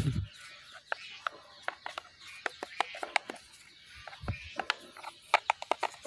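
A bristle paintbrush dabbing and scrubbing wood finish into the crevices of a carved wooden sculpture: irregular small taps and clicks, with one dull thump about four seconds in.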